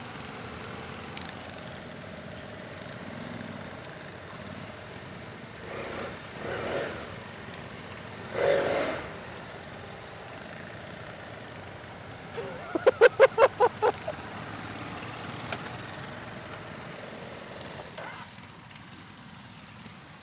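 BMW F 800 GS parallel-twin engine running steadily at idle. About halfway through comes a loud, quick string of about eight short pitched pulses, the loudest sound here, with two briefer pitched sounds a few seconds before it.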